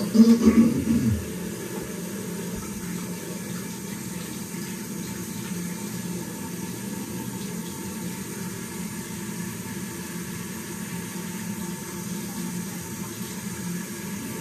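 Bathroom tap running steadily into a sink, with a short, louder burst of sound in the first second.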